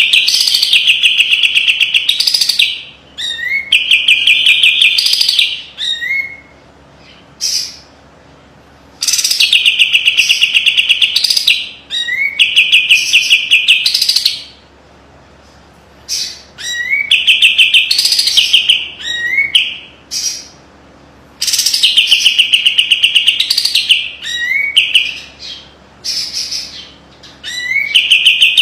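A kapas tembak bulbul sings loud, repeated phrases with short pauses between them. Each phrase opens with a quick upward slide and runs into a fast, tight, high trill of rapid notes, the sharp rattling 'besetan' prized in this bird's song.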